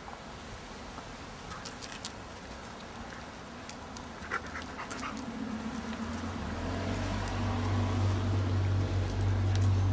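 Siberian husky puppies close to the microphone, with dog panting and a low, steady rumble that grows louder from about six seconds in. Before that, faint scattered ticks.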